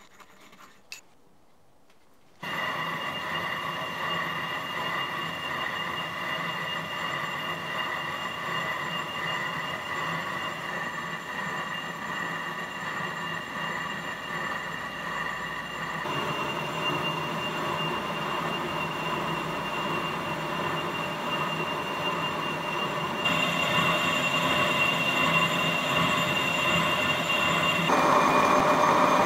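A metal lathe starts up about two seconds in and runs, a boring bar cutting inside a steam pump cylinder liner, with a steady whine of several high tones over the noise of the cut. The tone shifts twice and grows louder near the end.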